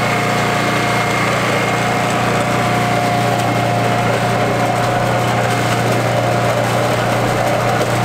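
Small engine of a trailer-mounted concrete mixer running steadily, turning a drum loaded with wet concrete, with a steady hum and a thin high whine over it.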